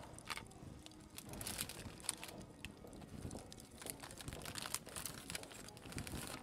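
Plastic cling film crinkling in a run of irregular crackles as a hand presses it down over a glass baking dish.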